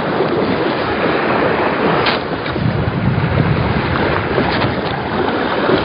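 Steady rushing noise of wind on the microphone mixed with sea waves washing against the shore rocks.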